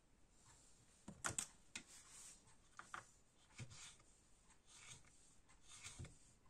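A small kitchen knife cutting on a wooden chopping board: a few quiet, irregular knocks as the blade meets the board, with a small cluster about a second in and a few single knocks after.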